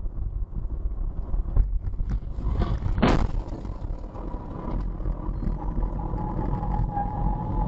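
Car crash heard from a dashcam: steady road and engine rumble, a loud impact about three seconds in, then a steady high-pitched tone to the end.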